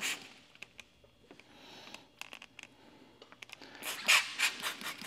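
Trigger spray bottle spritzing tack solution under paint protection film: one short squirt at the start, then a quick run of about five squirts near the end, with faint ticks in between.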